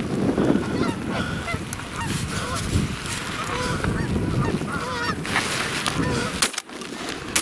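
Canada geese honking repeatedly as a flock flies in over the decoys, with a single sharp shotgun bang right at the end.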